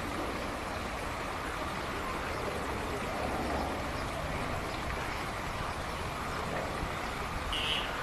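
Steady outdoor background noise, even and unbroken, with one short high chirp about seven and a half seconds in.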